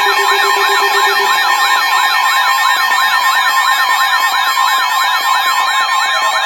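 Electronic alert siren sweeping rapidly up and down, about three sweeps a second, over a steady high alarm tone. It is the alert that comes ahead of a severe thunderstorm warning broadcast. A lower pulsing tone drops out about a second in.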